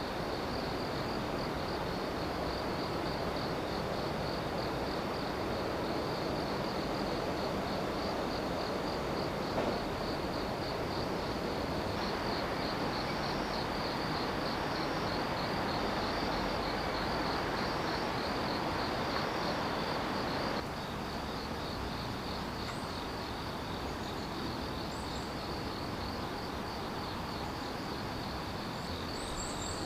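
Insects chirping outdoors in a fast, steady, evenly pulsing high trill, over a steady rushing background noise.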